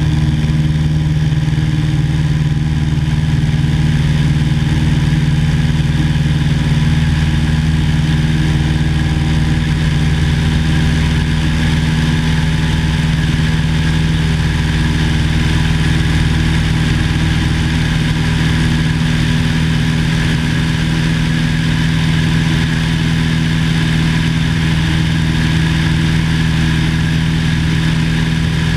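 The 1950 Cessna 170A's six-cylinder Continental C-145 engine and propeller running steadily at an even speed, a constant drone.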